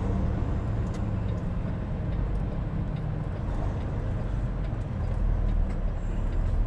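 Semi truck's diesel engine running steadily, heard from inside the cab as a low, even rumble.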